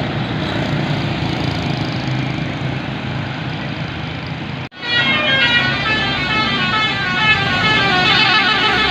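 Heavy vehicle engine running steadily. About halfway through it cuts off abruptly and a bus telolet horn takes over, playing a fast tune of stepping, multi-toned notes.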